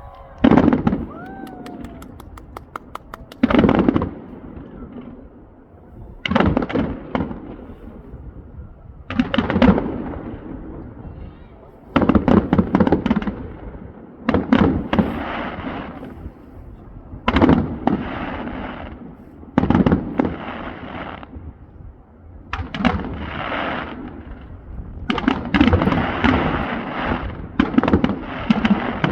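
Fireworks display: aerial shells bursting one after another, a loud bang every two to three seconds, each followed by crackling and a fading rumble. The bursts crowd together near the end.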